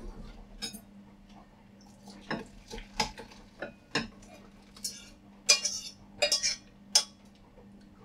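A saucepan and a utensil clinking and scraping against a ceramic bowl as miso soup is poured and scooped out: a string of sharp clinks and short scrapes, busiest about five to seven seconds in, over a steady low hum.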